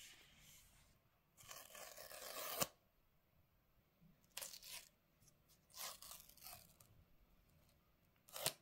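Paper tear strips sealing an iPhone box being ripped off: a tearing rip of just over a second that ends in a sharp snap, then shorter rips and rustles, and another sharp snap near the end.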